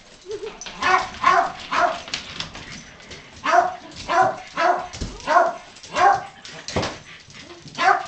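A dog giving short, high yelping barks: three quickly about a second in, then five more at roughly one every half second, and another near the end. Excited barking from a dog being leashed up for a walk.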